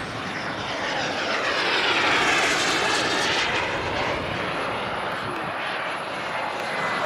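Turbine engine of a radio-controlled Skymaster A-4 Skyhawk scale model jet flying past: a steady jet whoosh that swells to its loudest about two seconds in, then eases off.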